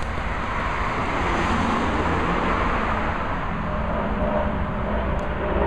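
Steady road noise of a car driving slowly along a street: engine rumble and tyre noise.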